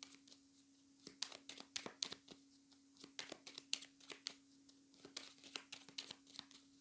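Faint rustling and clicking of tarot cards being handled, with a steady low hum underneath.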